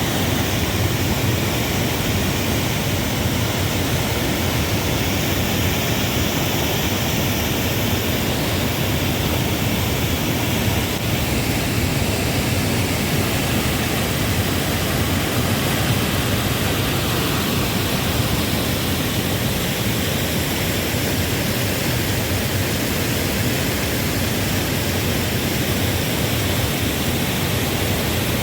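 Rain-swollen river rushing heavily over stones and falls: a loud, steady, unbroken wash of water.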